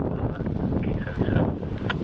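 Wind buffeting the microphone over the low rumble of a freight train rolling along the tracks.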